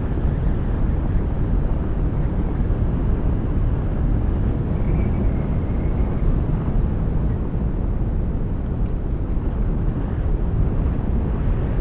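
Steady wind rushing and buffeting across the microphone, as in paragliding flight.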